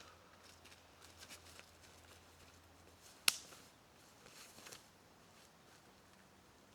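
Faint scattered footsteps and rustling handling sounds, with one sharp knock about three seconds in.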